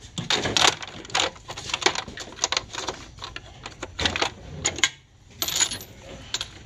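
Chrome sockets clinking against one another and the metal drawer as they are pushed back onto socket rails in a toolbox, in a string of irregular metallic clicks with a brief lull about five seconds in.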